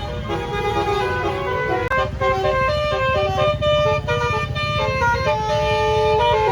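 Bus telolet basuri horn playing a quick melody, its notes stepping up and down every fraction of a second, over the low rumble of the bus.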